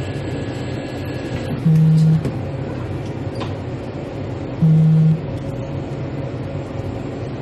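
Two short, identical low buzzes, each about half a second, about three seconds apart, over a steady low background hum.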